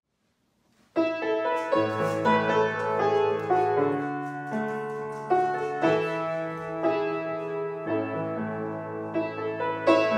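Solo upright piano playing sustained chords, starting about a second in after silence.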